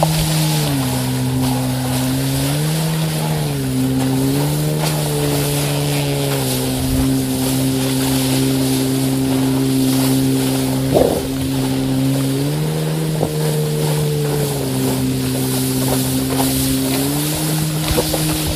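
A towing motorboat's engine runs steadily, its pitch rising and falling between two levels several times as the throttle changes. Water spray from the wakeboard and wind on the microphone hiss underneath.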